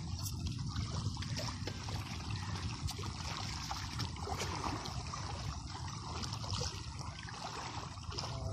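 Steady wash of small waves lapping and trickling on open reservoir water.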